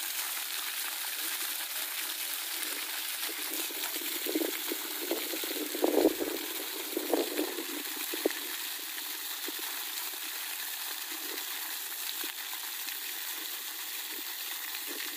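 Steady rush of water. A cluster of metallic knocks and clinks comes about four to eight seconds in.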